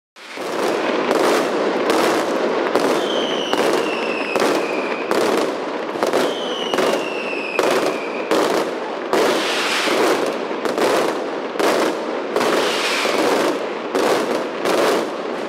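Mascletà daytime firecrackers going off in a dense, continuous crackle, with loud bangs about two a second. Three times, a high whistle slides down in pitch over a second or two.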